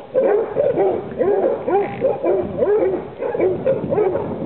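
A pack of basset hounds baying together: many overlapping drawn-out calls, each rising and falling in pitch, several a second.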